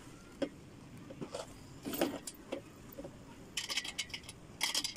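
Metal-framed computer table being assembled by hand: scattered knocks and taps as the wooden board and steel frame parts are handled, with two short bursts of metallic jingling near the end.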